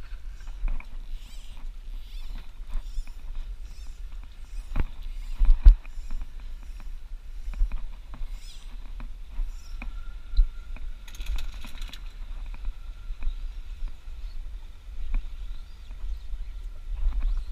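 Wind rumbling on an action-camera microphone in an open boat at sea, with scattered knocks and clicks from handling a fly rod, reel and line. A short hiss comes about eleven seconds in, and a faint steady whine starts about ten seconds in.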